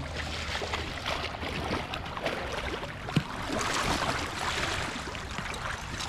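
Splashing and sloshing of boots wading through shallow, flowing creek water, with water churning and dripping as sticks and a body-grip trap are pulled up out of it. The splashing gets a little louder about four seconds in.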